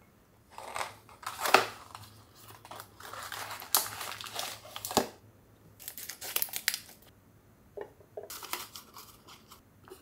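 A clear plastic bag of ground coffee crinkling in several bursts as it is handled and snipped open with scissors.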